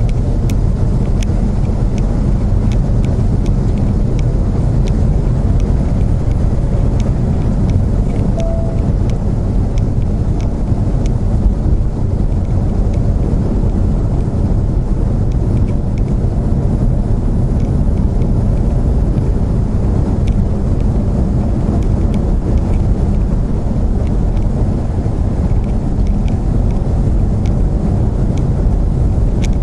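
Steady engine and road rumble heard inside a semi-truck's cab as it drives downhill on a mountain pass.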